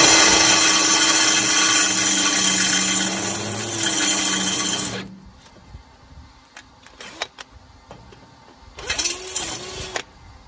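Cordless drill boring a hole into a rusty steel box-section beam, running steadily for about five seconds and then stopping. A few light clicks follow, and near the end the drill is briefly spun up twice, rising and falling in pitch.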